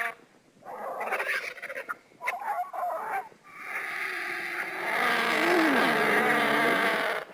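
Designed animal calls standing in for the extinct terror bird Titanis walleri: two short, harsh calls, then one long pitched call of about four seconds whose pitch dips and rises again near the end.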